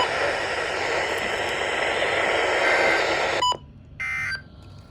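Weather radio receiver hissing with static from a weak, distant NOAA Weather Radio signal. The hiss cuts off abruptly about three and a half seconds in, and a short beep follows about half a second later.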